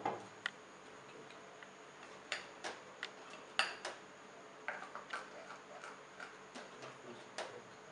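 Plastic spoon stirring thick dosa batter in a glass bowl, making short clicks and taps against the glass at an uneven pace.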